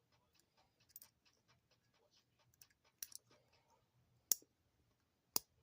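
Light clicking and tapping of small hand tools being handled, with a 1/4-inch ratchet among them, and two sharper clicks about four and five seconds in.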